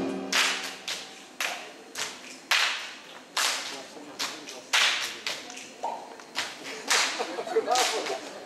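A group of dancers clapping their hands in unison, sharp claps about one to two a second in an uneven rhythmic pattern, each with a short echo.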